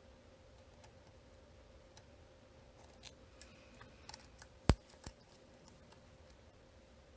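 Lock pick and tension tool working the pins of a VSC 9-pin cam lock: faint scattered metallic clicks and ticks, with one sharp, loud click a little before the 5-second mark and a smaller one just after.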